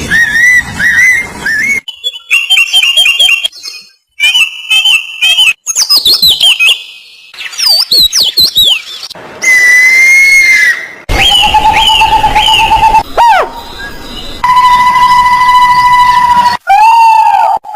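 A string of different bird calls and songs spliced one after another: chirps, quick repeated trills and falling whistles. Each switches abruptly to the next every second or two. Near the end come long, steady whistled notes.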